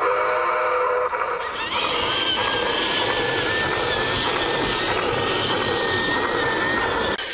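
A large-scale garden-railway model train sounds a chime-style steam whistle, which stops about a second in. The train then runs close past, a steady high whine over its running noise.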